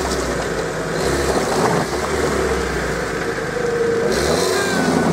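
Lada Niva's engine revving hard while it churns, stuck in deep swamp mud; a hissing rush joins about four seconds in.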